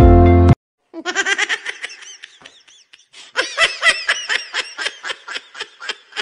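Background music cuts off about half a second in, followed by high-pitched laughter in quick repeated bursts.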